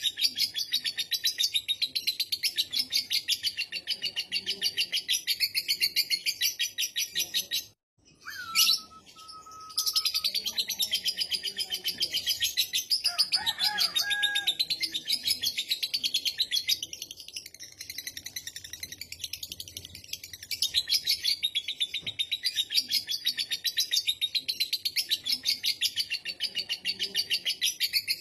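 Lovebird 'ngekek': a long, fast chattering trill of rapidly repeated high notes. It cuts off just under eight seconds in, a short gliding call follows, and the chattering resumes about two seconds later and carries on.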